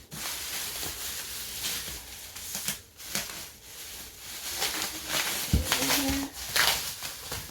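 Packaging being unwrapped by hand: steady rustling and crinkling of paper and plastic wrapping with scattered sharp crackles.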